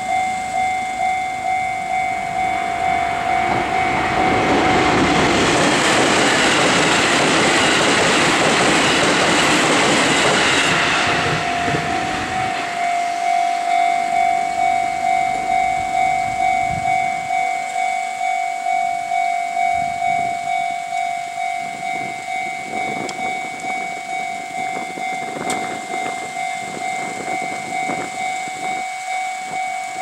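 Japanese level-crossing warning bell ringing in a steady repeating rhythm. A JR 313 series electric train passes from about three seconds in, its loud rush of wheel and motor noise drowning out the bell for about eight seconds before fading. The bell then keeps ringing over fainter rail rumble and knocks.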